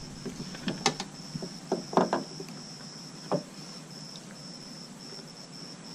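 A few sharp clicks and light knocks of hands handling a car's tail-light wiring connectors, the loudest around two seconds in, over a high, steady, pulsing insect trill.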